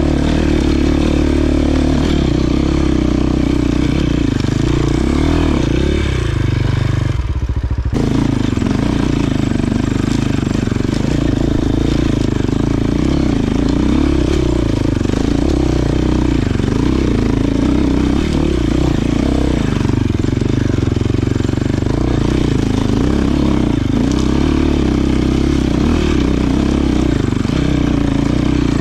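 Enduro dirt bike engine running under load on a rocky trail, its pitch rising and falling as the throttle is worked. About seven seconds in it briefly eases off, then picks up again.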